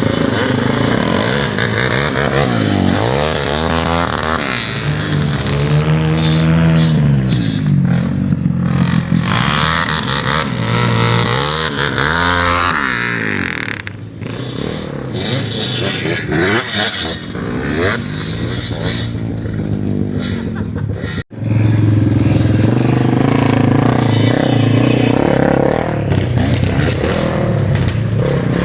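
A small motor vehicle's engine revving up and down over and over, with a break about two-thirds of the way through before it runs on.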